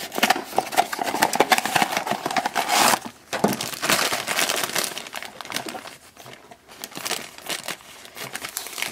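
A blind-box figure's black foil bag crinkling as it is pulled from its cardboard box and handled, loudest in the first few seconds, then cut open with scissors near the end.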